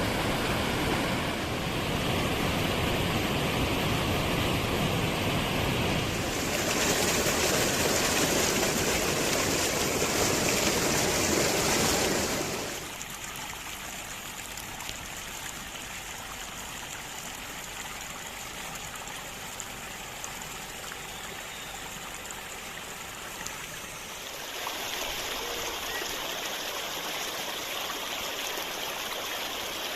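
Stream water rushing in a steady, even wash. It gets louder about six seconds in, drops sharply about twelve seconds in, and rises a little again near the end.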